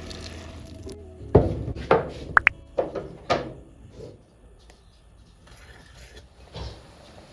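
A run of irregular hard knocks and thuds, about seven close together in a couple of seconds. One has a short ringing clink. A softer knock follows, and another near the end.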